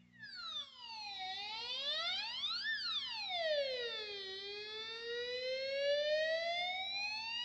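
STRICH analog flanger pedal making the classic siren sound: a whistling pitched tone that glides down, rises again to a peak, falls, then climbs slowly, like a siren.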